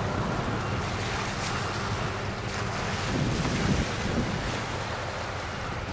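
Wind buffeting the microphone, gusting harder about three seconds in. Beneath it runs a low steady drone from the passing container ship's engine.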